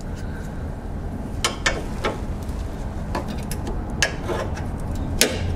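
Plastic wiring-harness connectors and retaining clips clicking and rattling as they are unclipped and handled, a handful of short sharp clicks over a steady low hum.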